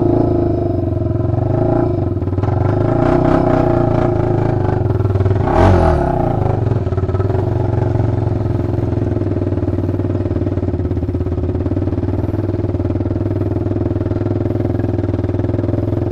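Honda TRX400EX sport quad's single-cylinder four-stroke engine running at a steady pull through soft, rutted mud. There is one brief thump a little before six seconds in.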